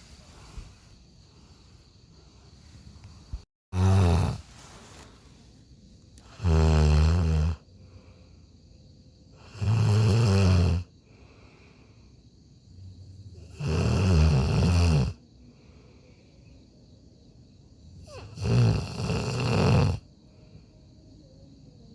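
A person snoring: five loud snores, one every three to four seconds, each about a second long.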